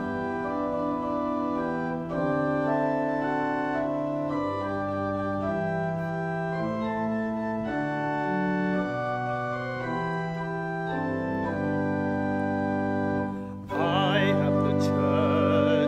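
Organ playing the introduction to a congregational song in held, sustained chords. After a brief dip in level shortly before the end, singing with vibrato comes in over the organ on the first line of the song.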